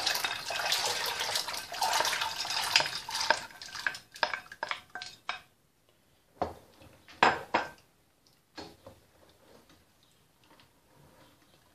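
White beans rattle out of a glass bowl and splash into a stainless-steel pot of sauce for about four seconds. A few sharp knocks follow a couple of seconds later as a wooden spoon stirs the pot and strikes its side.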